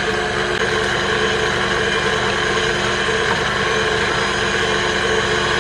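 Electric mixer running steadily at speed, beating eggs into butter for a batter.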